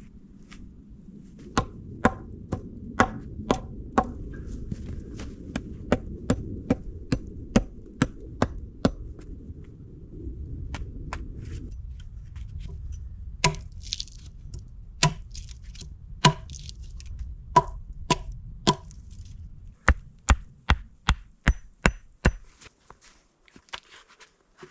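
Repeated chopping into wood with an axe or hatchet, sharp strokes about twice a second that come more irregularly later on. A low steady rumble runs underneath and stops abruptly shortly before the end.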